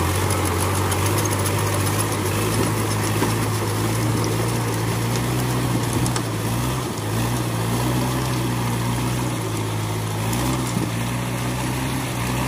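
Mahindra 265 DI tractor's diesel engine running at steady revs, dipping briefly about halfway through and then settling a little higher.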